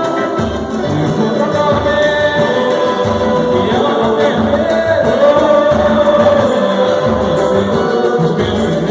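Live samba band playing, with several voices singing together over percussion that keeps a steady low beat.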